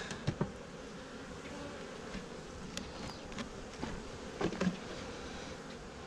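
Honeybees buzzing steadily in an opened hive, with a few light knocks and clicks from hive parts being handled, the loudest about half a second in and twice more about three-quarters of the way through.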